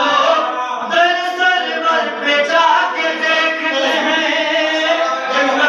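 A man chanting a devotional Urdu kalam into a microphone, in a melodic recitation with long held, sliding notes.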